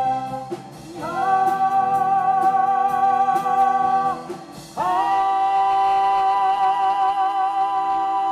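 Female soprano singing a wordless high vocalise over a backing track: two long held notes with vibrato. The second begins about halfway through and is held on past the end, and a steady beat runs under the first.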